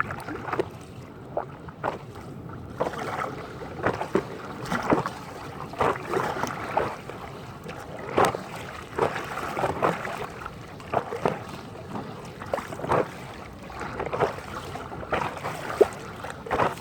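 Choppy river water splashing and slapping against a kayak as it is paddled through strong waves, in short irregular splashes about one or two a second.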